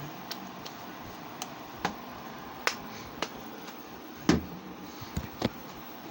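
A series of irregular sharp clicks and taps over a steady background hum, with the loudest knock a little past four seconds in.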